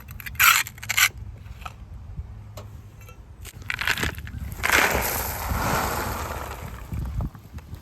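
Digging in gravelly soil around a buried stone base: two sharp knocks near the start, a few small clicks, then a long crunching scrape through the dirt that fades out about seven seconds in.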